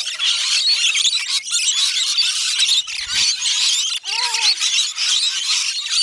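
A large flock of rainbow lorikeets screeching and chattering together, a dense, continuous shrill noise that never lets up.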